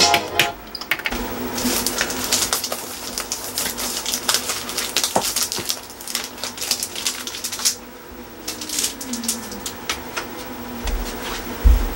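Vinyl LP jackets being flipped through and pulled from a packed record shelf: a run of quick, irregular cardboard clicks and rustles, easing off briefly a little past the middle.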